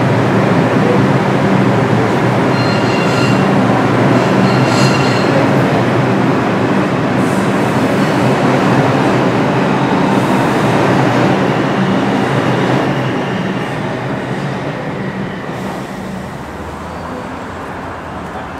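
A New York City subway train on the IRT 7th Avenue Line pulls out of the station and picks up speed along the platform, its wheels and motors running loud, with brief high wheel squeals a few seconds in. The noise fades away over the last few seconds as the train leaves.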